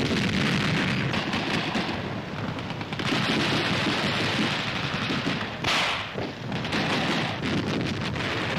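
Battle noise of assault guns firing and shells exploding: a dense, continuous rumble crowded with cracks and shots, with one sharper crack a little past the middle.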